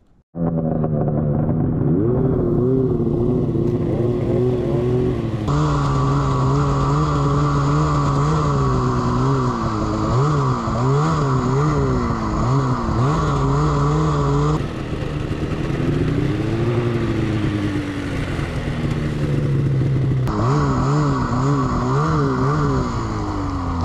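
Two-stroke mountain snowmobile engine running under throttle while riding, its pitch rising and falling as the throttle is worked. It cuts in abruptly just after the start, and a higher-pitched layer drops out and comes back abruptly partway through.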